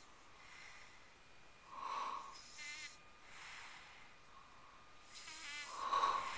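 A sleeping person snoring: two snoring breaths about four seconds apart, each with a fluttering rattle. The second, near the end, is the louder.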